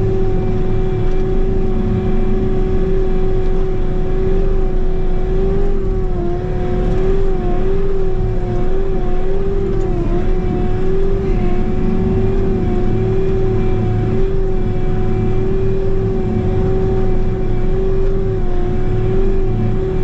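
Bobcat T66 track loader's diesel engine running steadily at about 2200 rpm, below full throttle, with a strong steady whine over a low rumble; the pitch dips briefly a few times in the middle.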